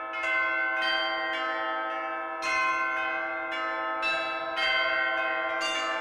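Church bells of Giotto's bell tower at Florence Cathedral ringing together. Strikes come irregularly, about every half second to second, each one ringing on and overlapping the others.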